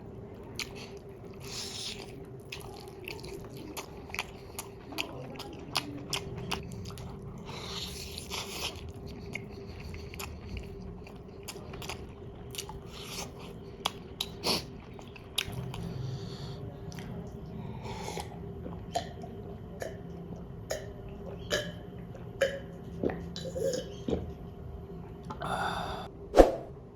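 Close-miked chewing and mouth sounds of someone eating chicken biryani: frequent wet clicks and smacks over a faint steady hum, with a single louder clink near the end.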